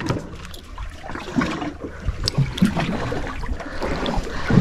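Sea water sloshing against a small fishing boat's hull under a low rumble, with scattered light knocks and clicks.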